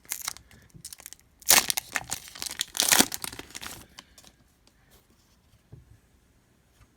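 Plastic wrapper of a hockey card pack crinkling and tearing as it is opened, loudest from about one and a half to four seconds in, then fading to light rustling as the cards are handled.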